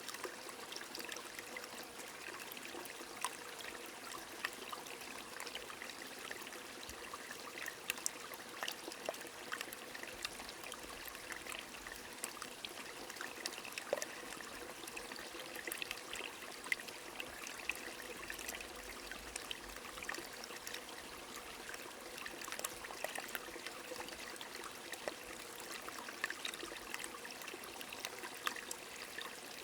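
A small stream trickling and splashing steadily, with many scattered sharp drops of rain falling through it.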